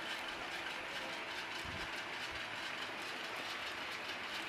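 A 1917 Hendey lathe running steadily under its VFD-driven electric motor, its belts and gearing giving a faint, regular clatter.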